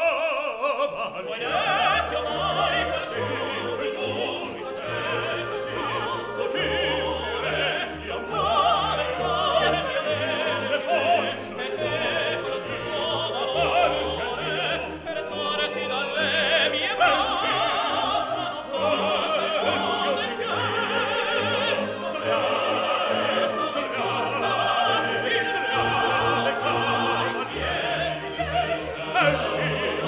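Background opera music: an operatic voice singing with vibrato over an orchestra, continuing without a break.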